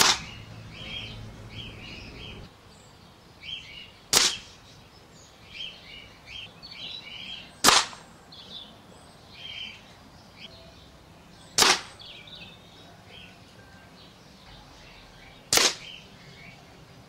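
Air rifle firing five single shots about four seconds apart, each a sharp report. Small birds chirp in the background.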